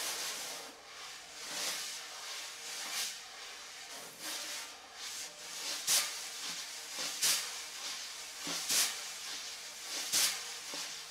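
Wire brush sweeping across a snare drum head: a steady swish that swells into a louder swish about every second and a half, each time the brush is angled down and pushed with a finger so more bristles touch the head.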